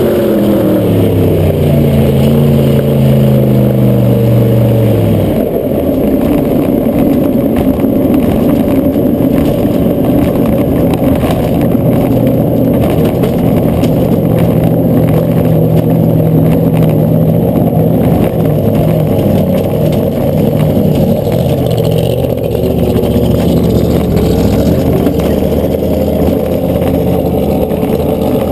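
Supercharged funny car engine heard from the cockpit as the car slows after its run: the revs fall steadily for about five seconds, then the engine runs at low revs under a rough rumble as the car rolls down the shutdown area.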